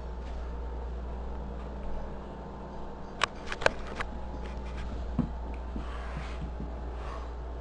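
Two house cats scuffling on a hard floor: a quick run of sharp knocks about three seconds in, then a few duller thumps, over a steady low hum.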